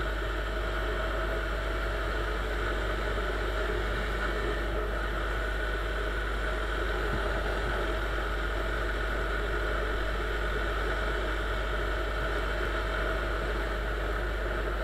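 A Chinese 200 cc motorcycle's engine running steadily at cruising speed, heard from the rider's seat together with wind and road noise, with no change in speed or pitch.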